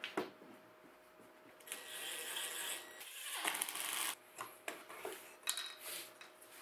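Cordless drill-driver spinning a screw into a plywood plate for about two seconds, starting a little under two seconds in. Short wooden knocks and taps from boards being handled come before and after it.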